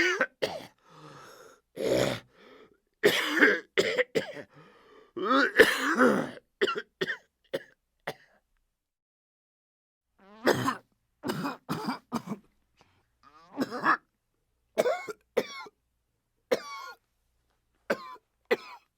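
A person coughing and clearing their throat over and over in short, sharp bursts, with a silent pause of about two seconds midway.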